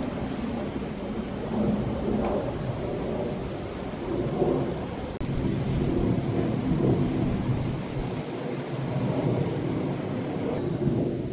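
Boeing 737 jet airliner passing high overhead, its engines heard as a low, steady rumble.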